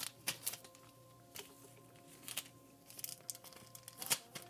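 Light handling noises of nail-art stamping tools on a tabletop: scattered small clicks, taps and crinkles, with a few sharper taps near the start and again near the end.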